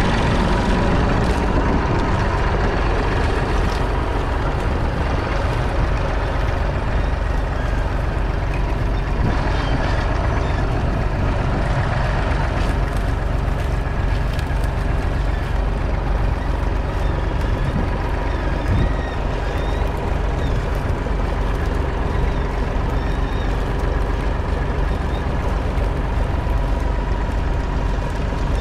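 Massey Ferguson 250's 2.5-litre three-cylinder diesel engine running steadily.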